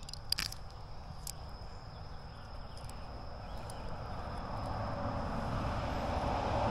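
A passing vehicle's rumble builds steadily from about halfway through and grows louder toward the end, over a steady high insect trill. A few light clicks of fishing tackle being handled come near the start.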